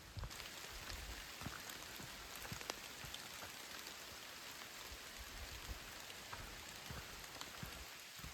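Steady rain falling, with many individual drops ticking close by over a constant hiss.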